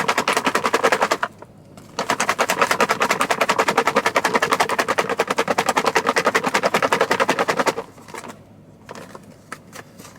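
Packaged Caesar salad being shaken hard in its closed plastic container to mix in the dressing: lettuce and croutons rattle against the walls in a fast, even rhythm. The shaking pauses briefly about a second in, resumes, and stops shortly before the end.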